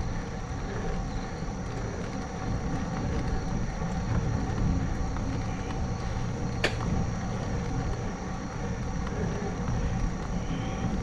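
Wind and road noise on a GoPro's microphone while riding a bicycle, a steady low rumble, with one sharp click about two-thirds of the way through.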